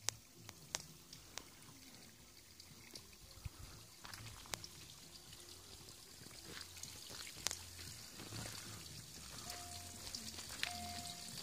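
Water trickling and splashing from a stone spring fountain, growing louder over the second half, with scattered sharp clicks and taps throughout. A steady high tone sounds twice near the end.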